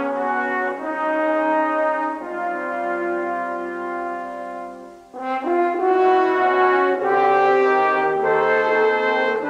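Slow orchestral music led by brass, French horns prominent, holding long sustained chords that shift every second or two; it fades almost out about five seconds in, then comes back fuller on a new chord.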